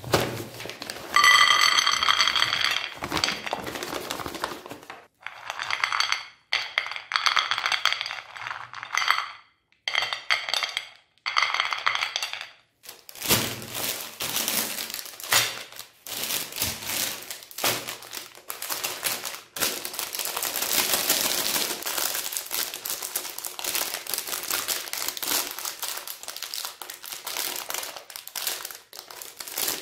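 Jelly-bean candies poured in three batches onto a ceramic plate, clattering and setting the plate ringing. About 13 seconds in, this gives way to the plastic wrappers of Magnum ice cream bars crinkling and rustling as they are handled and torn open.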